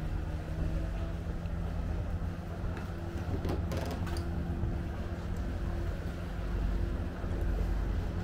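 An engine running with a steady low hum over a low rumble, with a brief knock about three and a half seconds in.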